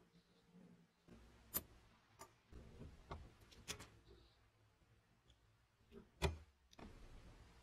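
Faint, sharp metal clicks and taps, about half a dozen spread out with the loudest about six seconds in, as needle-nose pliers and fingers fit a small coil spring onto the metal frame of a tape dispenser gun.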